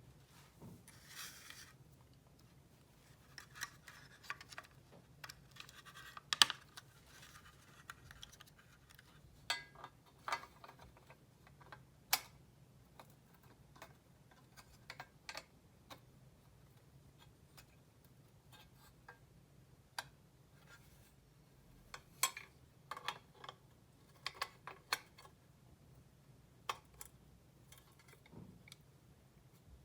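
Irregular light clicks and taps, with a few brief scratching sounds near the start, from small parts of a model car being handled and worked on.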